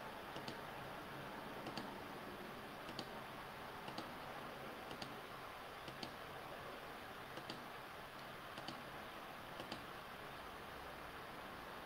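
Computer mouse button clicks, about one a second, some in quick pairs, over a faint steady hiss.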